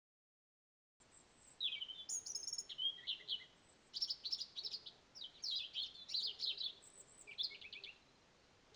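A songbird singing a varied phrase of high chirps, short whistles and rapid trills, starting and stopping abruptly.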